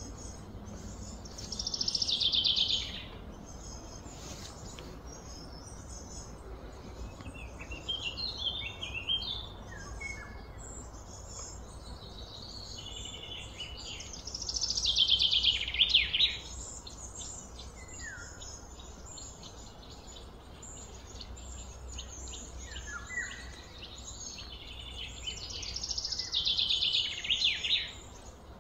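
A songbird singing three loud phrases about twelve seconds apart, each a rapid trill falling in pitch, with shorter scattered chirps in between. A faint steady low rumble lies underneath.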